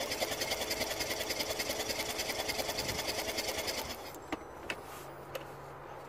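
Smart Fortwo 451's 1.0-litre three-cylinder petrol engine cranking on the starter for about four seconds, a fast even rhythmic whirr with the spark plugs out for a spark check. It does not fire, then stops abruptly, followed by a few light clicks.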